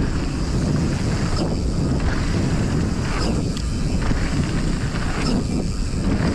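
Wind rushing over the microphone of a mountain bike ridden fast down a dirt jump trail, with a rumble from the bike rolling over the dirt. A few brief swells come about every two seconds.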